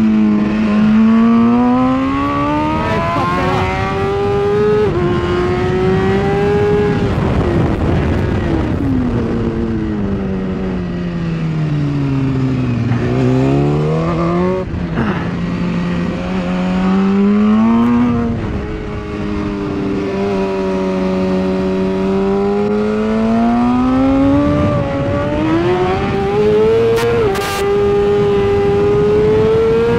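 A 2016 BMW S1000RR's inline-four engine at full race pace with wind rush over it. Engine pitch climbs, sinks to its lowest about halfway through, then climbs again, with several quick gear-change steps, and is high near the end.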